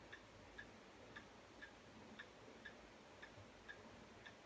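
Near silence with a clock ticking faintly and evenly, about two ticks a second.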